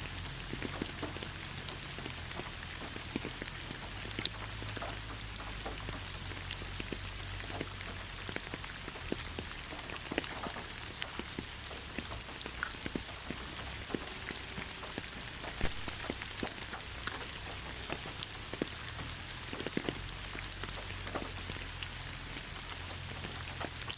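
Steady rainfall: an even hiss thick with the separate hits of individual drops, over a low rumble.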